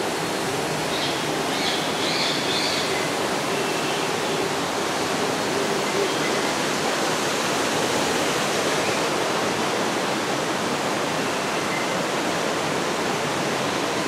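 Steady rushing of water from an artificial waterfall and stream, with a few faint, short high chirps in the first few seconds.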